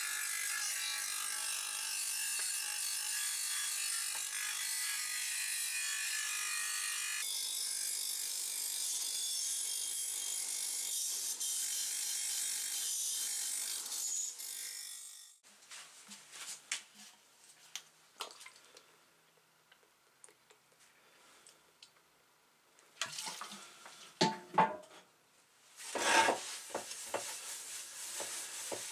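Bench grinder wire wheel brushing grime and rust off an engine part, a steady hiss that cuts off abruptly about halfway through. After that come light rubbing and handling sounds, with a few louder knocks and scrapes near the end as a rag wipes a metal engine shroud on a wooden bench.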